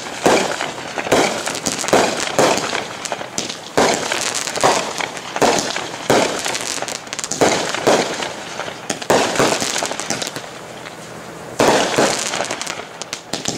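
Two Brothers "AF One" consumer fireworks cakes firing: a quick series of sharp reports, about one to one and a half a second, each trailed by a hiss of sparks, with a short lull about ten seconds in before the shots resume.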